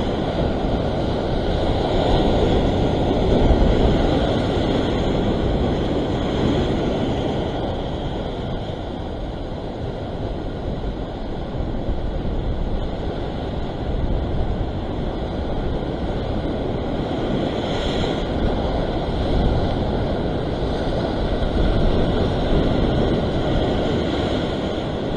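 Ocean surf breaking and washing over shoreline rocks, swelling and easing every few seconds, with wind rumbling on the microphone.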